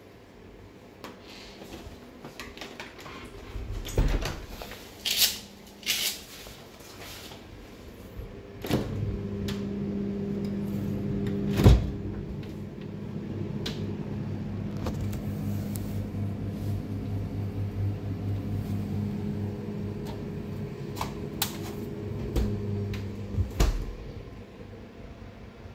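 Kitchenette cupboard and fridge-freezer doors being opened and shut: scattered clicks and knocks, the loudest a sharp knock a little before halfway. From about nine seconds in a steady electrical hum runs on, stopping with a couple of clicks shortly before the end.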